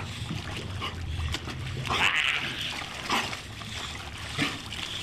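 Large dog snarling and growling while thrashing in a swimming pool, with water splashing as a man wrestles it. The mastiff, pit bull and Doberman mix is agitated, and its snarl is at its loudest about two seconds in.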